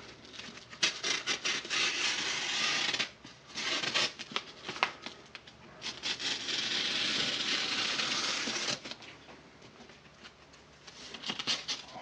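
Utility knife blade slitting wrapping paper along the edge of a cardboard box: two long scraping cuts, with crinkling paper between them.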